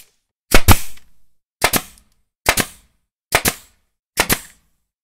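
Intro sound effect of sharp double bangs: five pairs of hits, each pair two quick cracks, repeating a little faster than once a second with silence between, the first pair the loudest.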